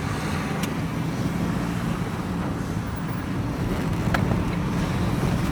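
Van engine and road noise heard from inside the cab while driving, a steady hum with a couple of faint clicks.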